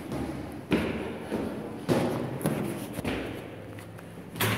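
Footsteps climbing stone stairs: a thud about every second, each fading in the stairwell, with a sharper knock near the end.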